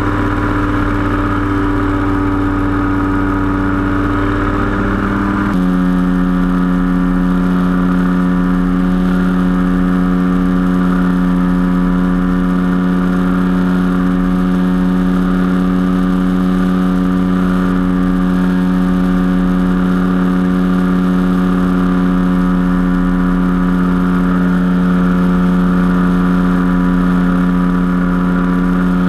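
Powered parachute's engine and propeller running steadily in flight, heard from the open cart. The engine note changes abruptly about five seconds in, then holds steady.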